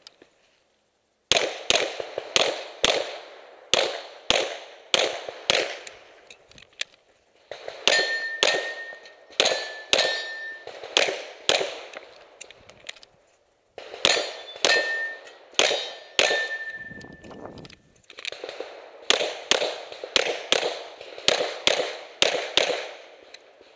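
Semi-automatic pistol fired close to the ear in rapid strings, shots a fraction of a second apart, broken by brief pauses of about a second. After some of the shots, steel targets ring with a short steady tone.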